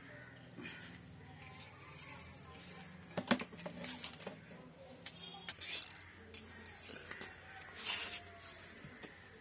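Quiet handling noise as a brake-lever cable is worked along a welded steel frame: scattered clicks, taps and rustles over a faint steady low hum.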